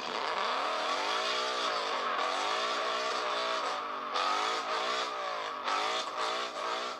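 Ford Mustang doing a burnout: the engine is revved up and down about once a second while the spinning rear tyres squeal.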